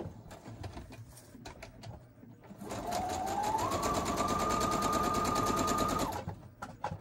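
Electric sewing machine stitching through paper to sew a pocket closed. About two and a half seconds in the motor speeds up with a rising whine, then runs at a steady pace with a rapid needle rhythm, and stops suddenly about a second before the end. A few light handling clicks come before it starts.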